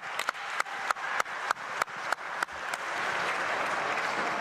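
Crowd clapping in unison, about three claps a second, then breaking into steady applause about three seconds in.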